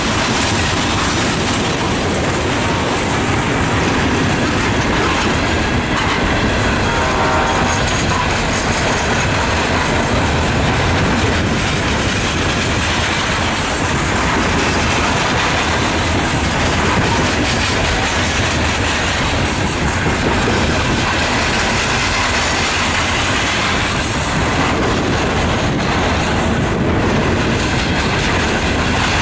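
Norfolk Southern coal train's hopper cars rolling past, a steady clatter of wheels over the rail joints with some wheel squeal.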